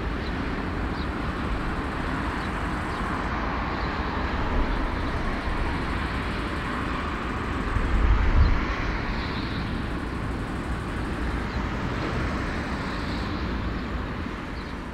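Jet engines of a four-engine Airbus A340 taxiing, heard across an airfield as a steady rush with a low rumble that swells briefly about eight seconds in.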